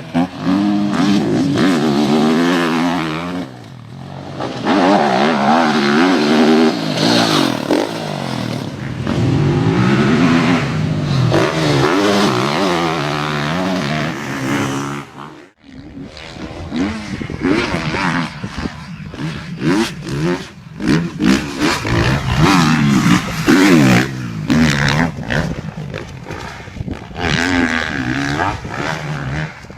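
Motocross motorcycle engines revving hard, the pitch rising and falling again and again with the throttle. About halfway through the sound cuts out abruptly, then returns as choppier, more broken revving.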